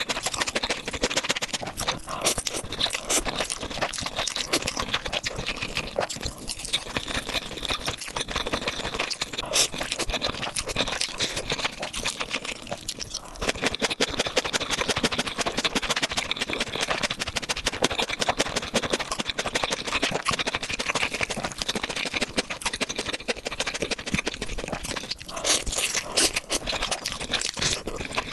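Close-miked eating of spicy instant ramen noodles: chewing with a steady stream of wet clicks and smacks from the mouth, dipping briefly twice.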